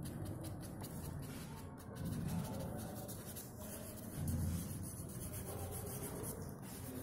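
Fingers rubbing across drawing paper, blending the charcoal shading of a portrait. The rubbing swells louder twice, about two seconds and four and a half seconds in.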